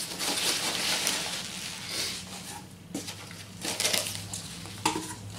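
Hands digging through loose polystyrene packing peanuts in a cardboard box, the foam pieces rustling against each other. The rustling is densest for the first two seconds or so, then comes in a few shorter bursts.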